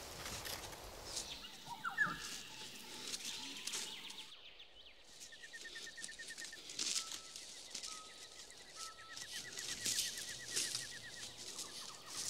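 Forest ambience with birds calling: a rapid, repeated trill that runs for several seconds, and short whistled notes. Dry leaves crunch now and then underfoot.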